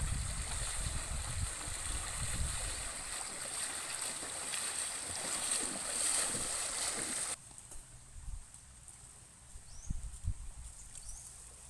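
Water sloshing and splashing as people feel for fish by hand in shallow water. About seven seconds in it cuts off suddenly to a much quieter stretch with a few small splashes.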